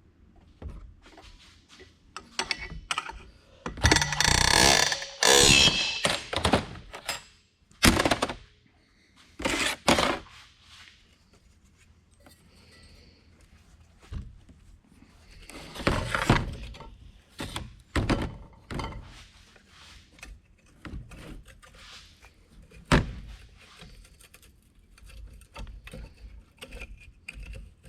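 Metal turbocharger parts being worked apart by hand and with tools: an irregular string of clunks, clicks and scraping. It is loudest in noisy stretches about four to seven seconds in and again around ten and sixteen seconds, with a sharp knock near the end.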